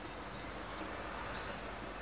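Liquid coolant pouring from an upturned bottle through a funnel and hose into a PC water-cooling reservoir: a steady trickling fill.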